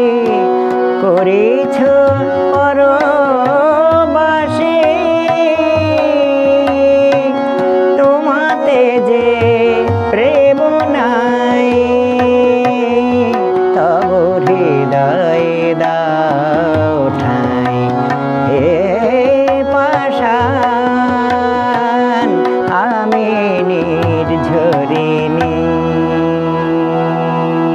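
A Bengali song with a male voice singing over tabla accompaniment, with long held notes.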